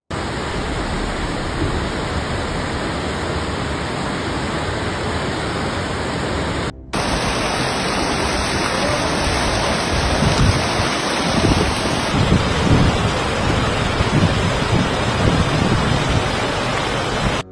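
Fast floodwater rushing through a street as a steady, loud rush of water, cut off briefly about seven seconds in.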